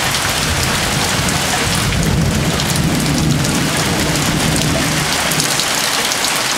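Heavy rain falling steadily, with a long low rumble of thunder that builds over the first couple of seconds and fades out about five seconds in.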